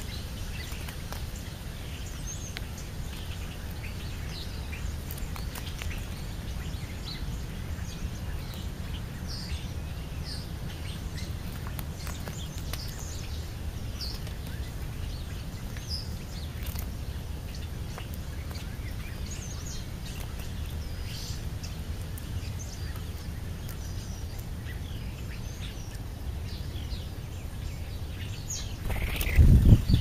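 Scattered short chirps of songbirds over a steady low rumble. Near the end there is a loud, close rustle and knock at the microphone.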